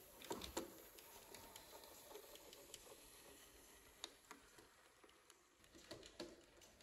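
Faint, irregular clicks and ticks of small 009 narrow-gauge model trains running on the track, with a few sharper clicks in the first second and near the end.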